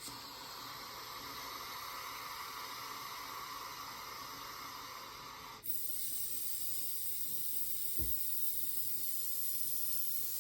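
Long, slow breaths drawn through a handheld resistance breathing trainer (the Breather), the air hissing through the device's restricted valve. About five and a half seconds in, the breath changes direction and the hiss turns abruptly higher and brighter.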